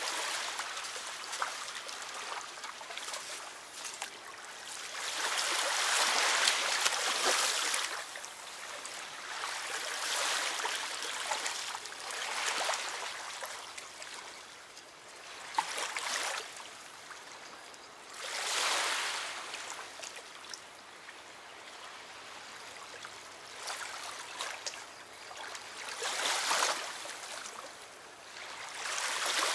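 River water lapping and washing at the bank, swelling and fading in slow surges every few seconds.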